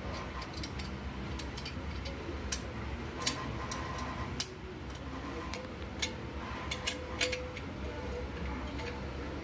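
Irregular sharp metallic clicks and taps of a hand tool on the 4 mm bolts of a motorcycle exhaust's end cover as they are loosened, over a low steady hum.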